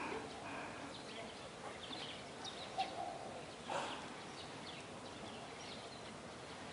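Outdoor rural ambience: scattered short bird chirps over a faint steady hiss, with a sharp knock about three seconds in and a brief louder noise just before four seconds.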